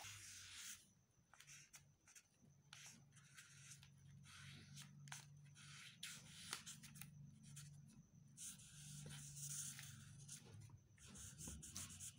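Faint scratching of a marker pen's nib across paper, in short irregular strokes as a word is written in cursive, over a low steady hum.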